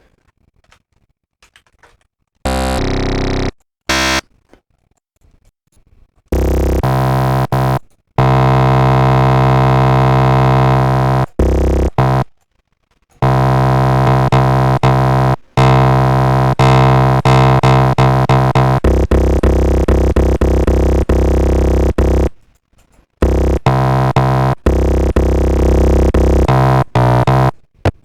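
Synthesizer playing a phase-modulated formant oscillator patch through saturation and compression: after a quiet start, one short note, then long low held notes dense with overtones, broken by brief gaps and retriggered in quick succession in the second half.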